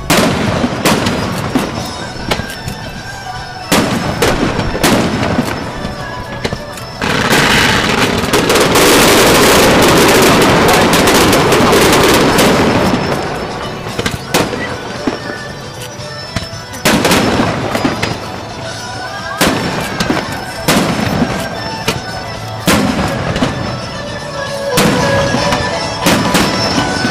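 Aerial firework shells bursting over and over, sharp bangs and reports one after another, swelling into a loud, dense continuous barrage from about 7 to 13 seconds in. Music plays underneath.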